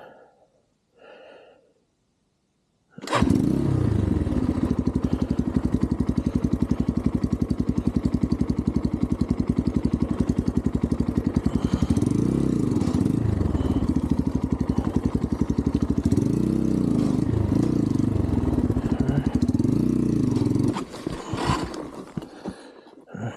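Single-cylinder four-stroke 250cc dirt bike engine (Xpro Templar X 250) running close to the microphone with a fast, even pulse. It comes in abruptly about three seconds in and is revved up and down several times while climbing rocky terrain. Near the end the engine sound drops away sharply.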